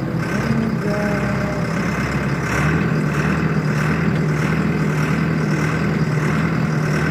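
A vehicle engine running steadily at an even speed, a constant low hum with no change in pitch.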